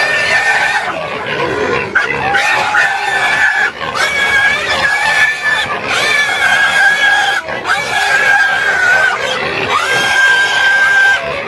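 A pig squealing in distress, a string of long high squeals of about a second each, one after another: the cries of a pig seized in a crocodile's jaws.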